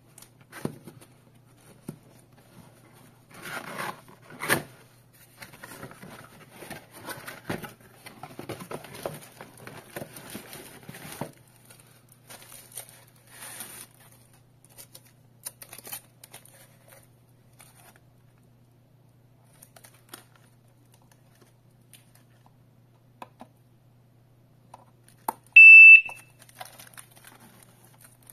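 Cardboard box and plastic wrapping rustling, crinkling and tearing as a wireless alarm siren is unpacked, with a few light handling clicks. Near the end the siren gives one loud, high, steady beep, just under a second long, as it is switched on.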